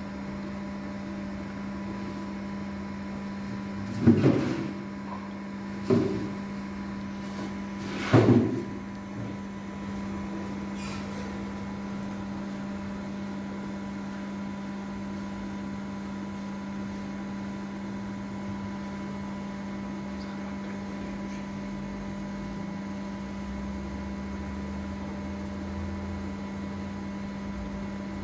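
A steady low electrical hum, with three loud knocks about two seconds apart a few seconds in.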